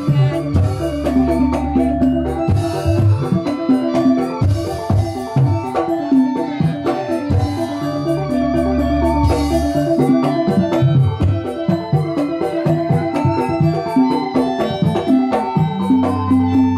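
Banyumasan lengger accompaniment: an electronic keyboard playing held, organ-like notes over short strokes of a kendang hand drum.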